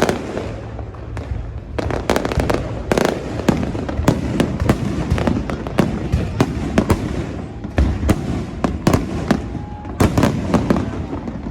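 Aerial fireworks going off overhead: a rapid, irregular string of sharp bangs and crackles, densest about two to three seconds in and again near the end.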